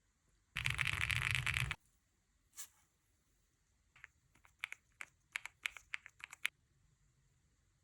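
A loud rush of noise lasting about a second, then a single click, then a quick irregular run of about a dozen sharp clicks from the keys of an Akko M1 V5 VIA mechanical keyboard being typed on.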